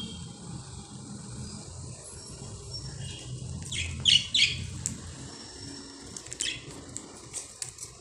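Pet budgerigars giving short, sharp chirps, a quick cluster of three loud ones about four seconds in and a few fainter ones later, over a steady low hum.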